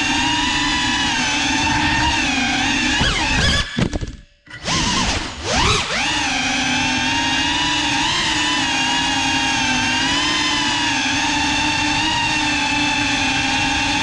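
GEPRC Cinelog 35 cinewhoop's motors and ducted propellers whining steadily in flight. About four seconds in, the throttle is cut: the whine falls in pitch and drops almost to silence, then swoops back up and holds steady again.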